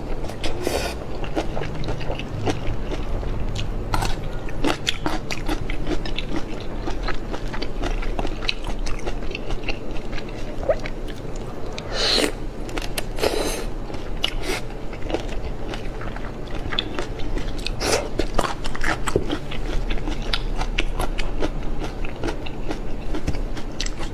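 Close-up eating sounds of shrimp in chili sauce being bitten and chewed, with many small crunches and clicks throughout.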